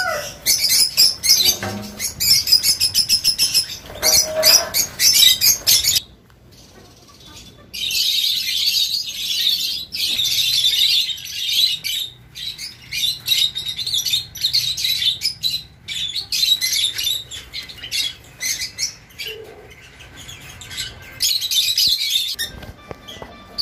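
A flock of peach-faced lovebirds chattering with dense, rapid high-pitched chirps. The calling drops away for about two seconds around six seconds in, then picks up again.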